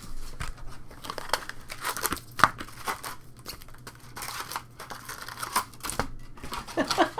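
Trading card pack wrappers crinkling and tearing as packs are opened and the cards handled, in irregular rustles and clicks.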